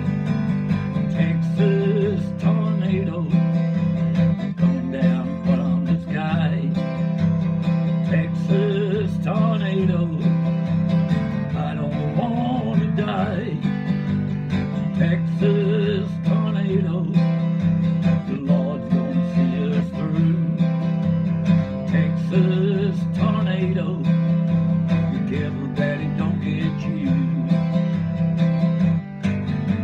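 Acoustic guitar strummed in a steady rhythm, with a man's voice singing along at times.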